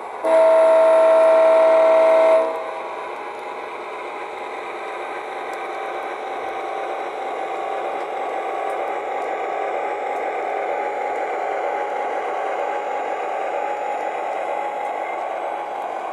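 O gauge Lionel U30C diesel with a Proto-Sound 2.0 sound board sounding its diesel horn in one loud blast of about two seconds, then a steady running sound as the locomotive rolls along the three-rail track, growing slightly louder.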